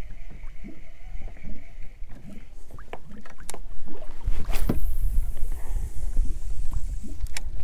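Spinning reel being wound in with a faint steady whine, then a few small clicks. About four and a half seconds in a cast sends the line swishing out, a hiss that falls and fades, and a sharp click comes near the end. A low rumble of wind and water against the inflatable boat runs underneath.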